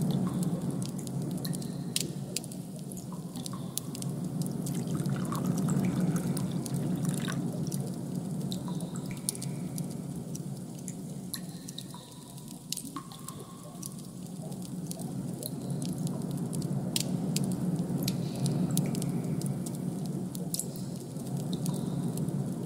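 A designed ambient background: a steady low drone that slowly swells and fades, with irregular sharp dripping clicks scattered through it.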